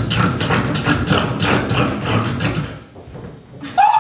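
A person making sound effects with his mouth into a microphone: a fast, rhythmic run of clicks and thuds, then, just before the end, a high note that slides up and holds steady.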